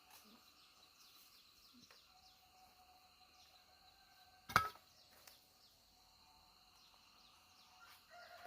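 Faint bird calls, with a rooster starting to crow near the end, and one sharp knock about halfway through.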